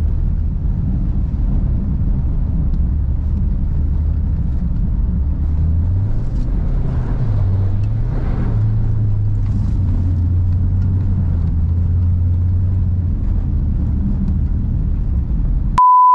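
Subaru Forester SJG's turbocharged flat-four engine running under load, its note climbing about six seconds in, dipping, then holding steady. A loud steady beep cuts in near the end.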